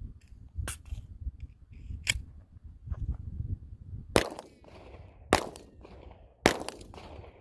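Three handgun shots about a second apart, each trailed by a short echo, in the second half. Two fainter sharp cracks come earlier, over a low rumble.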